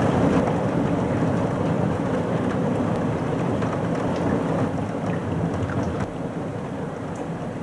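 Thunderstorm: rain falling steadily under a low rumble of thunder that slowly fades away.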